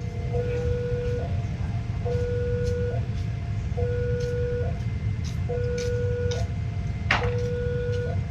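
Railroad level-crossing warning alarm sounding: an electronic two-note signal alternating evenly between a lower and a higher tone, one full cycle about every 1.7 seconds, over a steady low rumble. A single sharp click about seven seconds in.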